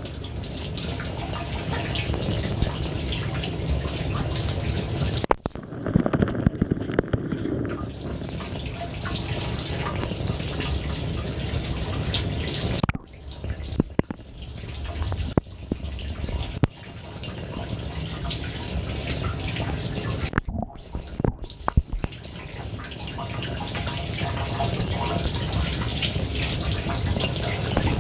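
Water spraying and splashing inside a running Samsung dishwasher during its wash cycle, a steady rushing hiss that cuts out briefly a few times.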